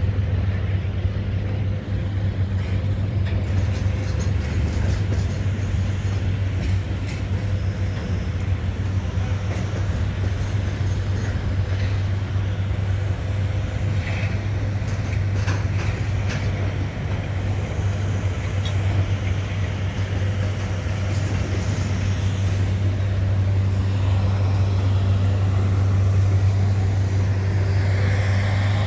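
Canadian Pacific double-stack freight train rolling slowly past, with a steady low diesel drone under it and a few faint clicks from the cars.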